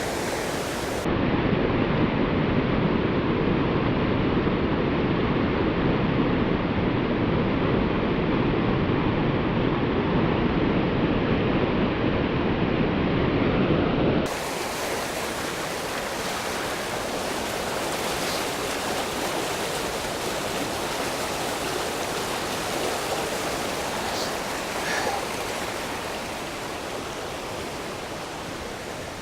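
Rushing water of a rain-swollen river and waterfalls, a steady roar. About a second in it turns deeper and louder, and about fourteen seconds in it switches back to a brighter, hissier rush.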